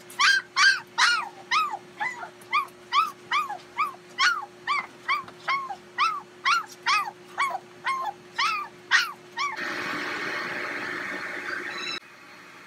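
Poodle puppies crying in a quick string of high yelps that rise and fall, about three a second. Near the end they give way to about two seconds of a steady rushing noise.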